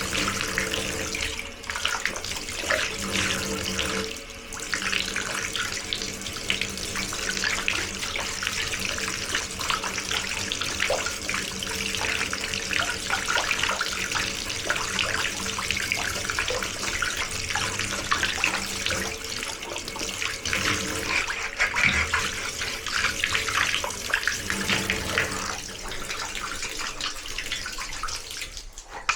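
Tap water running steadily and spattering into a basin, as if something is being rinsed under the stream.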